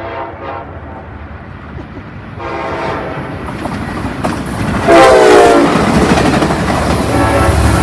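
Amtrak locomotive horn sounding a series of blasts as the train approaches and passes: a short one at the start, another about two and a half seconds in, and the loudest about five seconds in, its pitch dropping as the locomotive goes by. From then on the rumble and clatter of the passing train fill in under it.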